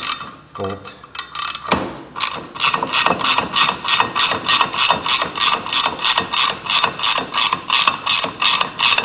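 Hand ratchet wrench clicking in an even, rapid rhythm, about four or five clicks a second, as it backs out the bolt that holds the driven clutch on its shaft. The steady clicking starts about two seconds in.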